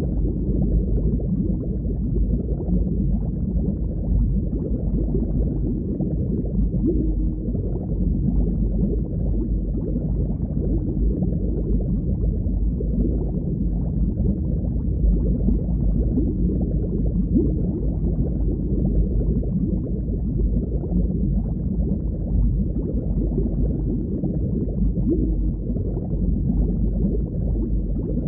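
Underwater ambience: a steady, low, muffled rush of water noise with nothing high-pitched in it.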